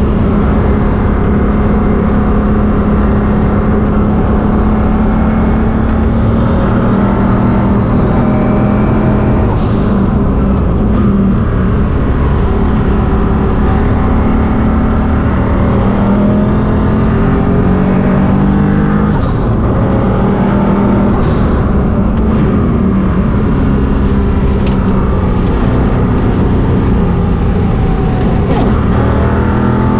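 Koenig C62 Porsche 962 race car's turbocharged flat-six engine running hard at speed, heard from inside the cockpit, its pitch rising and falling through the gears and corners. A few brief sharp sounds cut through the engine noise.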